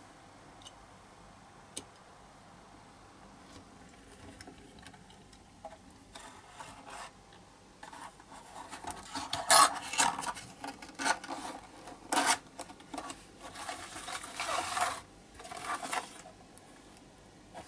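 A thin cardboard box being handled and its end flaps folded and tucked shut: a run of rubbing, scraping rustles in the second half, loudest about halfway through.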